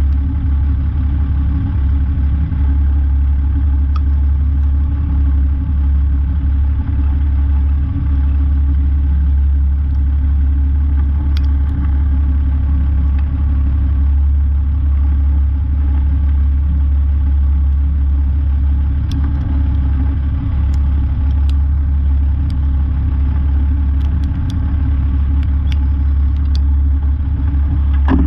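Semi truck's diesel engine running steadily at a low, even speed, a deep drone with no revving, with a few faint clicks over it.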